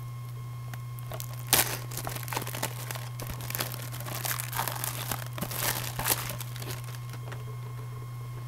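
Plastic wrapping on a Blu-ray case crinkling and tearing as it is peeled off, with a sharp snap about one and a half seconds in and crackling for several seconds after. A steady low electrical hum runs underneath.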